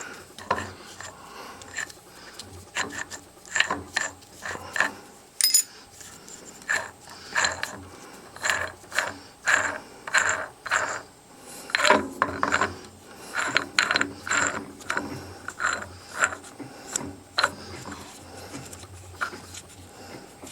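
Irregular metallic clicking and scraping as the adjuster nut is worked off the spindle of a G0704 mill's quill. There is a brief high ring about five seconds in.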